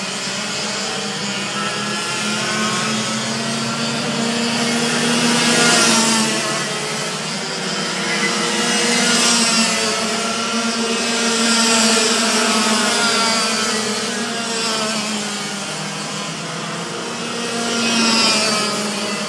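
Several racing kart engines buzz around the circuit, several pitches overlapping and rising and falling as the karts accelerate and brake. The sound swells each time a group of karts passes close by, about four times.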